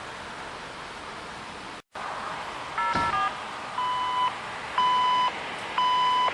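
Fire dispatch radio alert tones: a short burst of mixed steady tones, then three long, even beeps about a second apart, the alert that comes before a dispatch call is read out. Before them a steady hiss runs and cuts out abruptly for a moment.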